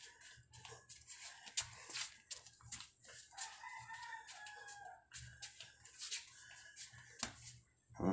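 A two-month-old Shih Tzu puppy's claws clicking and skittering on a tiled floor as it runs about. A rooster crows faintly, one long crow starting about three and a half seconds in.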